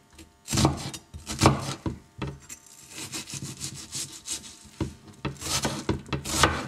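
Chef's knife cutting a red onion on a plastic cutting board: a series of slicing strokes, each ending with the blade knocking on the board. There are a few spaced cuts at first, quicker, lighter cuts in the middle and louder cuts near the end.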